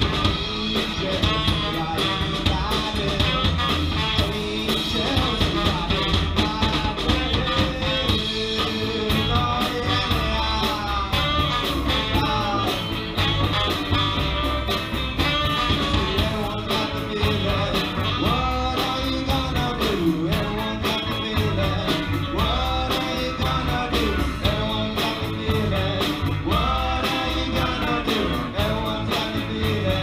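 Live band playing a song with a steady beat: electric guitars, drums, saxophone and trombone.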